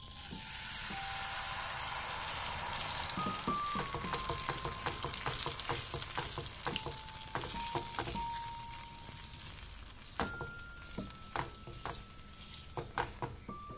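Kadhi mixture poured into a pan of hot oil with curry leaves and dried red chillies sizzles at once. It is then stirred with a silicone spatula that taps and scrapes the pan, and the sizzle dies down over the last few seconds.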